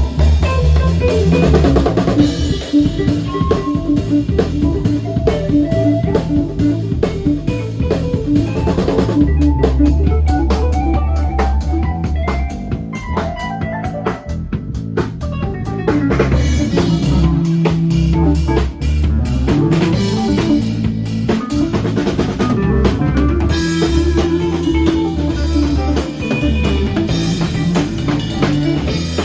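A live instrumental jam: a drum kit playing a steady groove with rimshots and kick drum under guitar and a low bass line.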